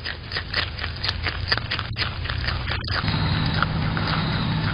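Groundhog chewing and crunching food close to a security camera's microphone: a quick run of crunching clicks, a few a second. A steady low hum comes in about three seconds in.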